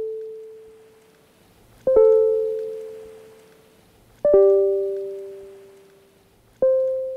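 Sparse closing music of the outro: three soft keyboard chords struck about two and a half seconds apart, each left to ring and fade away.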